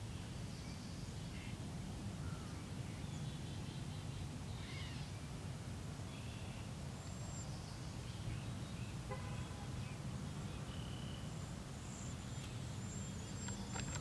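Outdoor lakeside ambience: scattered short bird chirps and calls over a steady low rumble.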